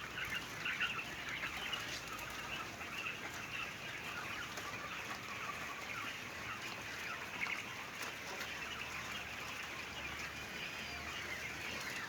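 A flock of caged laying quails chirping and calling over one another: a dense, steady chatter of many short calls.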